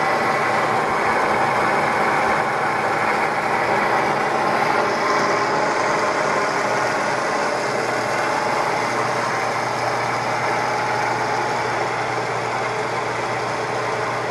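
Bridgeport Series 1 CNC milling machine's 2 hp spindle head running steadily while the table axes feed under program control. A low steady hum joins about two thirds of the way through as another axis drive starts moving.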